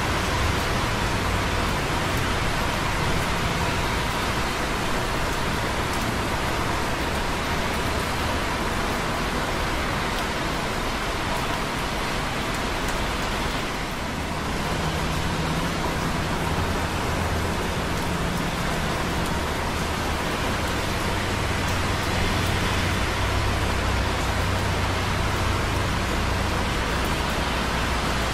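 Light rain dripping on concrete close by, over a steady hiss of busy traffic on wet roads far below, heard from a tower block rooftop, with a low rumble underneath.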